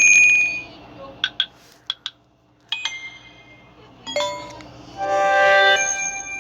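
Samsung Galaxy J7 Star ringtone sounds playing through the phone's speaker: a series of short electronic melody snippets and chime notes separated by brief pauses, with a fuller, louder run of tones near the end.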